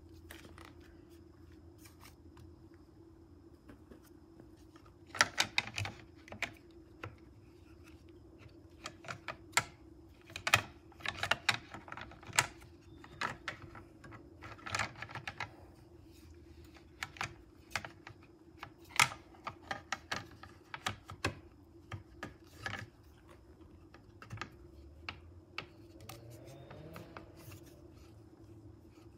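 Irregular sharp clicks and taps of hard plastic parts of a bike rack's clamp mount being handled and pushed into place, coming in quick clusters from about five seconds in and thinning out near the end, over a faint steady hum.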